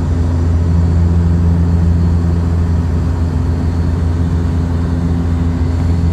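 Steady low drone inside an airliner cabin in flight: engine and airflow noise with a deep, even hum.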